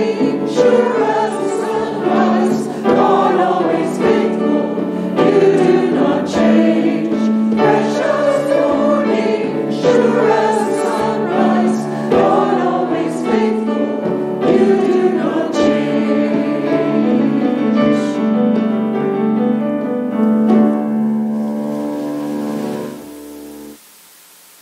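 Church choir singing with piano accompaniment, ending on a held final chord that stops about a second before the end.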